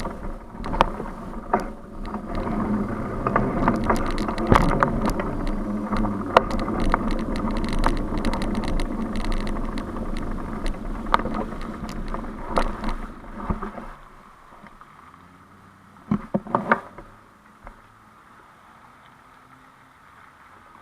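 Bicycle riding on city streets: rolling road noise with sharp rattling knocks over bumps. About 14 s in it drops suddenly to a faint low hum, with a brief cluster of knocks a couple of seconds later.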